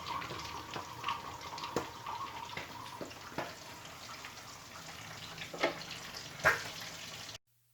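Water running from a kitchen tap, with occasional sharp clinks and knocks, cutting off abruptly to silence near the end.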